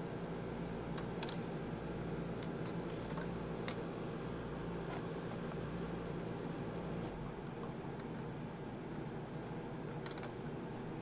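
Scattered light clicks and taps from engine valves and dial indicators being handled on a valve-straightness jig, the sharpest a little under four seconds in, over a steady background hum.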